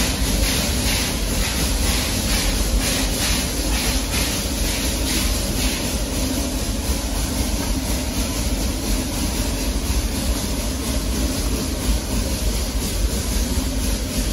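Steam locomotive working with quick, regular exhaust beats over a steady low rumble and hiss; the beats fade about six seconds in, leaving the rumble.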